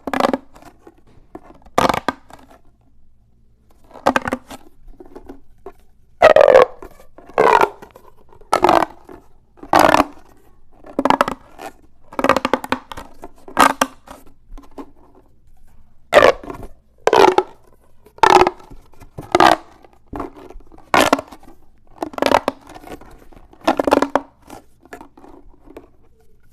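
Ribbed plastic pop tube fidget toy being stretched and squashed, its pleats popping open and shut in short bursts about once a second.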